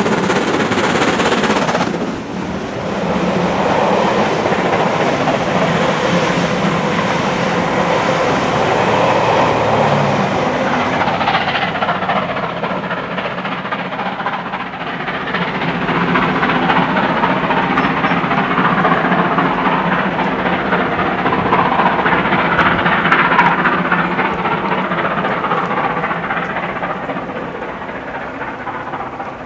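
BR Standard Class 7 Pacific steam locomotive 70000 'Britannia' working hard up a gradient with a heavy train. Its exhaust is mixed with the rattle of the passing coaches, and the sound fades over the last few seconds as the train pulls away.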